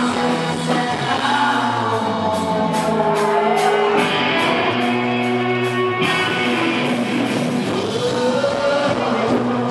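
Rock band playing live through a club PA, with sung vocals, guitar and drums. A run of steady drum and cymbal hits drives the middle of the stretch.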